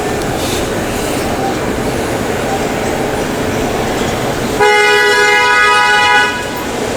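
Street traffic noise, then a car horn blowing once, held steady for about a second and a half, about two-thirds of the way in.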